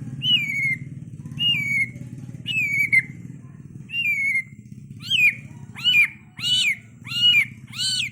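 An animal giving repeated high, meow-like calls over a steady low hum. The calls start as single falling cries about once a second. From about five seconds in they turn into faster, louder rising-and-falling meows.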